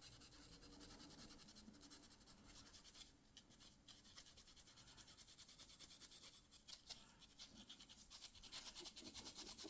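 Faint, rapid scrubbing as old finish is rubbed off a walnut revolver grip by hand, a quick back-and-forth scratching.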